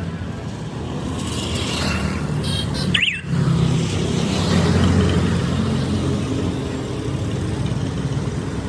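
An engine running steadily, with a short high squeak about three seconds in.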